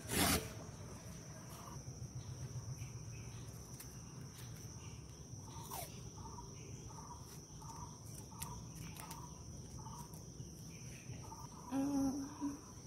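A sheet of paper is torn along a steel ruler right at the start. Then a steady high insect drone runs on, with short chirps repeating about twice a second and a brief pitched call near the end.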